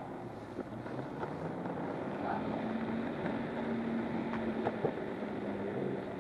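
Backfire Ranger X2 electric skateboard rolling on asphalt: steady tyre and road noise, with a steady motor whine from about two seconds in and a couple of light clicks over the road surface.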